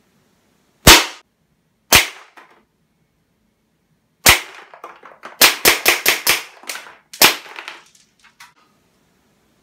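KSC CZ75 gas blowback airsoft pistol firing, each shot a sharp crack with the slide cycling. Two single shots about a second apart and a third a little later, then a quick string of about seven.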